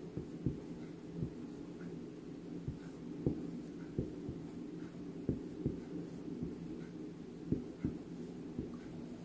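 Faint steady low hum with a few constant pitches, broken by irregular soft taps and clicks, about a dozen in all.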